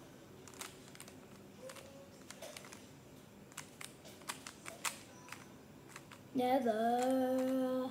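Plastic Rubik's cube being twisted, a scatter of light clicks and clacks as its layers turn. About six and a half seconds in, a child's voice holds one long, steady note.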